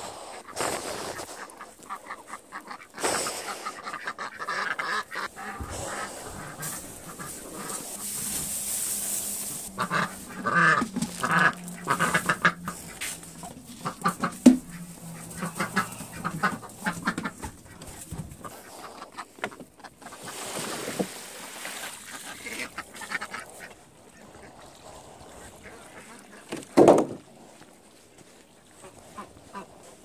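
Domestic ducks and geese quacking and honking in runs of quick repeated calls, busiest between about three and eighteen seconds in. A single loud thump comes near the end.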